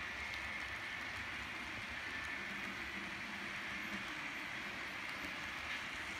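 Model freight cars rolling past close by on the layout's track: a steady rolling whir from the wheels over a low rumble.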